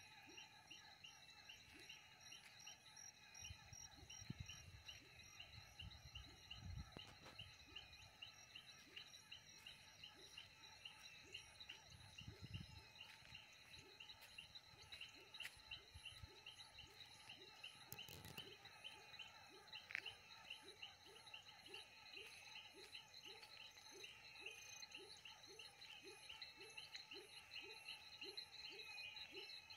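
Faint night chorus of frogs and toads at a pond, with a short low frog call repeating about twice a second among higher repeated chirping calls and a steady insect trill. A few dull low thumps sound in the first half.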